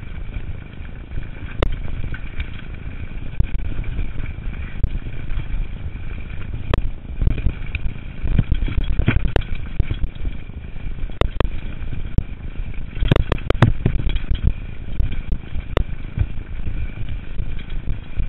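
Mountain bike riding fast down a dirt forest trail, heard from a camera on the rider: a continuous rough rumble of wind and tyres on the ground, broken by sharp clatters and knocks from the bike over bumps, several in quick succession about two-thirds of the way in.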